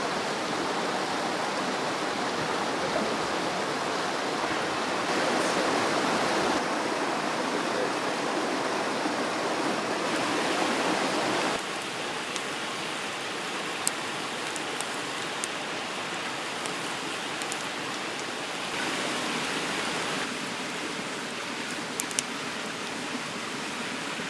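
Wood campfire burning with a few sharp pops and crackles over a steady rushing hiss.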